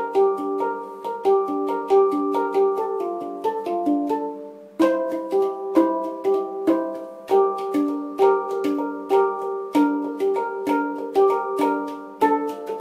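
Instrumental background music: a fast run of short, quickly repeated notes, about four or five a second, over a steady low drone, with a brief break about halfway through.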